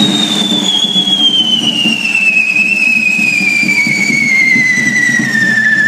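Handheld firework fountains hissing and spraying sparks, with one loud whistle that slowly falls in pitch as it burns.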